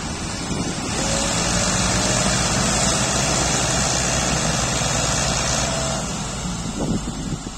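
Diesel tractor engines running hard under heavy load, straining to pull a brick-loaded trolley bogged in sand. The engines rise about a second in and ease off near the end.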